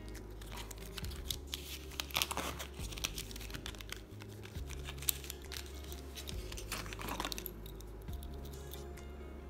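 Handling of a mesh-strap watch on its cardboard display card: crinkling of the card and light clicks of the metal, in two spells, from about half a second to three seconds in and again around seven seconds.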